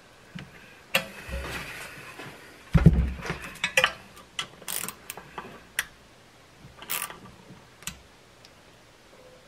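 Hand screwdriver turning screws into the plastic part of a snowmobile secondary clutch: scattered ratchet-like clicks and small knocks, with one heavy thump about three seconds in.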